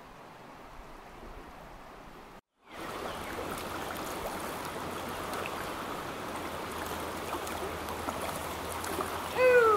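Running water of a shallow trout stream flowing steadily over its bed. It is faint at first, breaks off briefly about two and a half seconds in, then comes back louder. A man's short vocal sound is heard near the end.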